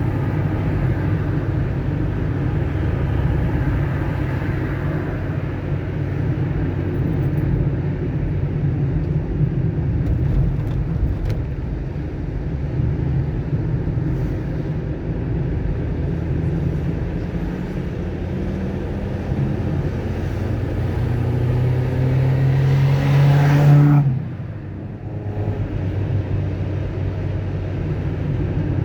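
Car driving on the road: a steady low engine and road rumble. Near the end the engine note climbs steadily as the car accelerates, then drops off suddenly, as at a gear change or lifting off the throttle.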